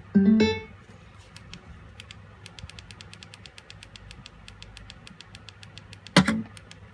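JBL Flip 3 portable speaker playing its short guitar-like Bluetooth-connected chime at the start, a few pitched notes stepping up. A run of faint, even ticks follows, about five a second, and a short loud sound comes near the end.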